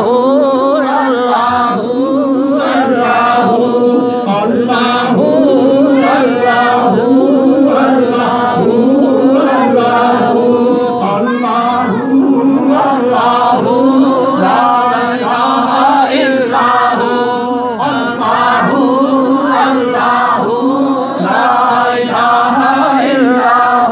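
A group of men singing a Punjabi naat, a devotional song in praise of the Prophet, together in chorus. A wavering sung melody runs over a steady held low note.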